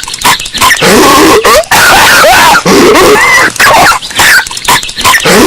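Patrick Star's cartoon coughing, boosted until it distorts: a run of loud coughing fits with short gaps, the voice sliding up and down in pitch.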